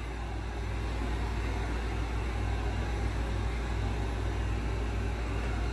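Handheld heat gun blowing steadily with an even, low whirring hum, warming the edge of an iMac's glass screen to soften the adhesive that holds it on.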